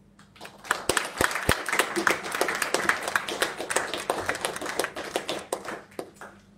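Audience applauding: many separate hand claps that start about half a second in and die away near the end.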